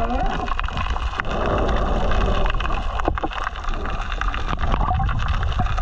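Steady low rumble with water sloshing and gurgling, and a few short knocks, about a second and three seconds in.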